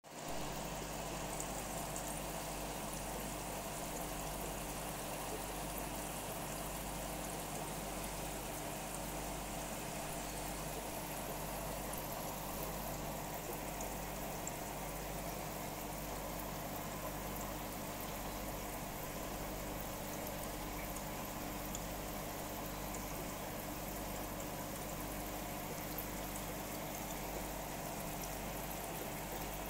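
Aquarium water bubbling and trickling steadily, with a constant low hum underneath.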